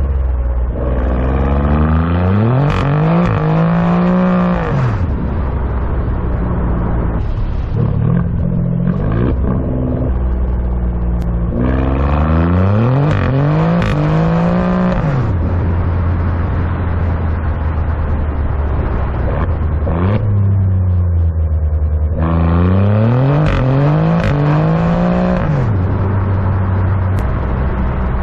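2018 Alfa Romeo Giulia Quadrifoglio's 2.9-litre twin-turbo V6 through an Akrapovic Evolution exhaust, heard at the tailpipes while driving. Three hard accelerations, each rising in pitch and then falling away as the throttle closes, with a steady lower drone of cruising between them.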